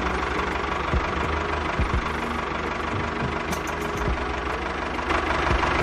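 A DIY mini tractor's small engine running steadily, with a few short knocks about one and two seconds in and again near the end.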